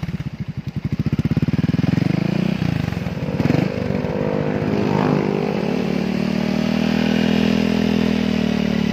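Yamaha XMAX 250's single-cylinder four-stroke engine running through an aftermarket exhaust that has been refitted with a new, smaller baffle in place of the old water-pipe one. It idles with a slow pulsing beat, is blipped a little over two seconds in, then revs up and holds a steady higher note.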